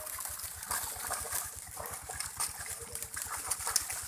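Water splashing and live fish flapping and slapping in a shallow metal tray as they are dropped in from the net, with sharp irregular splashes. Under it a small engine runs steadily with a rapid low putter.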